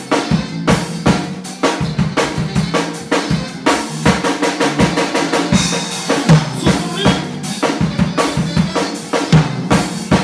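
Drum kit being played, a fast, busy run of bass drum and snare hits with no let-up.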